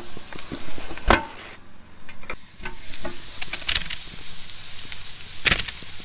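Sausages sizzling on a hot grill grate, with two sharp knocks, one about a second in and one near the end.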